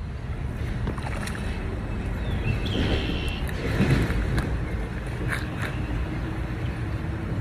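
Shallow, rocky river rippling and rushing steadily, with a low rumble of wind on the microphone.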